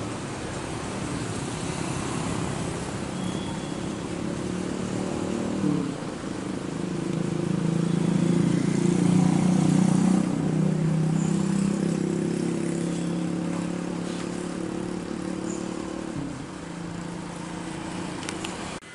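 Jet engines of a Garuda Indonesia Boeing 737 climbing away after takeoff. It is a steady low drone that swells through the middle and then slowly eases off.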